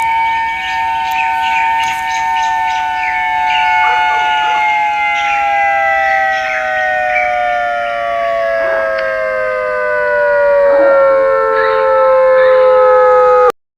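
Two-tone emergency alert siren sounding a steady chord that slowly falls in pitch, then cuts off abruptly near the end.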